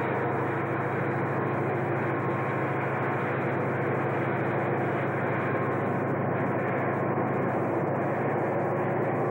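Diesel locomotive engine running, a steady low drone with an even rumble and no change in pitch or level.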